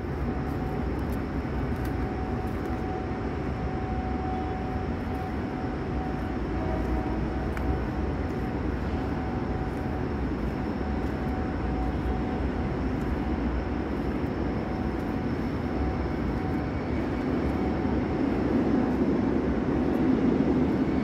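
Steady rumbling ambience of a construction site, with a faint steady hum of machinery that fades out late on; the rumble grows a little louder near the end.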